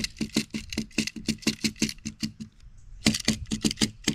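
A 3D-printed plastic speed loader with a Ruger Mark IV magazine in its base is tapped rapidly against a wooden table, about five knocks a second. This seats .22 LR cartridges down into the magazine. The knocks stop briefly about two and a half seconds in, then another quick run starts.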